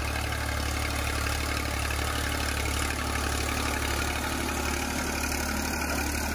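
Massey Ferguson 1035 DI tractor's three-cylinder diesel engine running steadily under load, driving a rotavator that is tilling the soil.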